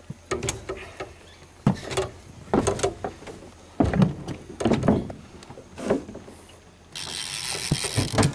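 Heavy baitcasting rod and reel creaking and clicking under the pull of a big stingray, with irregular knocks, then a steady hiss for about a second near the end.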